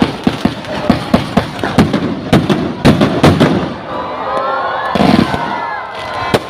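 New Year's fireworks going off in quick, loud bangs, with a crowd cheering and shouting. The bangs thin out after about four seconds.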